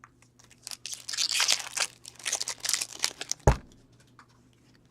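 Foil wrapper of a hockey trading-card pack being torn open and crinkled, then one thump about three and a half seconds in.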